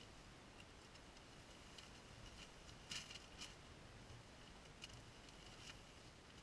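Near silence with a few faint rustles and clicks as a sleeping bag is handled, the clearest pair about halfway through.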